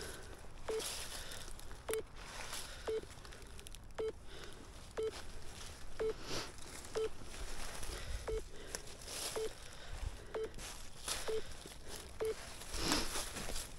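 Short, same-pitched electronic beeps from a treasure-hunting detector, repeating about once a second, with scattered rustling and scuffing underneath.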